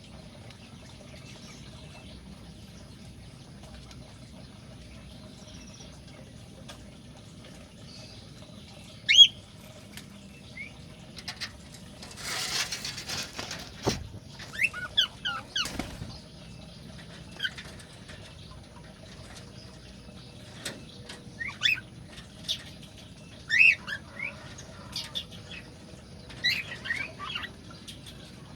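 Cockatiels giving short, sharp chirps and whistles now and then, with a brief flurry of wing flapping about twelve seconds in.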